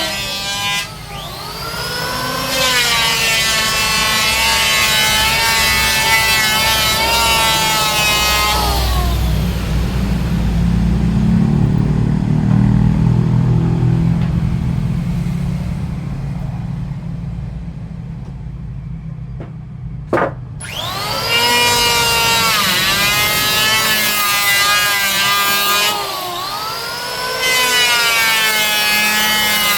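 An electric woodworking power tool's motor whines up to speed, runs steadily and winds down, then starts up again twice. Between runs there is a low rumble and a single sharp click.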